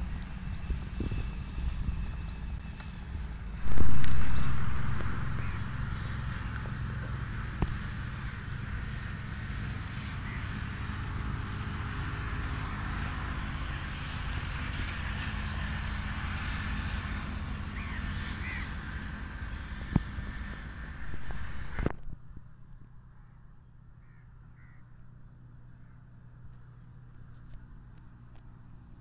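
Insects chirping in a steady rhythm, about two chirps a second, with a loud bump about four seconds in. The chirping cuts off abruptly about three quarters of the way through, leaving a much quieter background.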